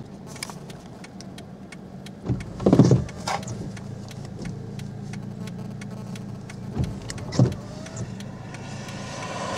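Inside a car with the engine running: a steady low hum, with a scatter of sharp ticks and a few louder thumps about two to three seconds in and again near seven seconds.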